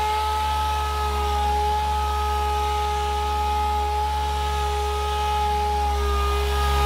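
Air-powered dual-action sander running steadily against a wet car door panel, wet sanding the clear coat with a 3000-grit pad. It gives a constant whine over a low hum, its pitch shifting slightly about a second and a half in and again near the end.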